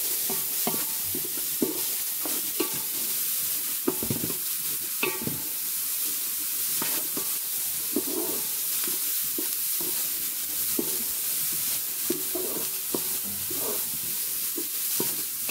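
Chopped onions and curry leaves sizzling in oil in a wide aluminium pan, with a wooden spatula scraping and stirring them in uneven strokes about once a second.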